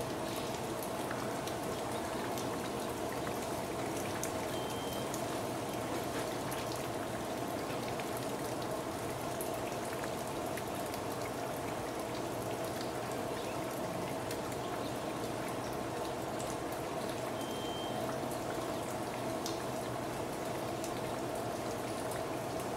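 Steady running and splashing water, an unbroken wash of sound with small drip-like ticks.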